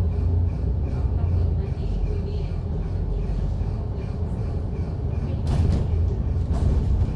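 MAN A95 double-decker bus heard from inside, its diesel engine and drivetrain running with a steady low rumble and a faint whine. A couple of short rattles or knocks come about five and a half and six and a half seconds in.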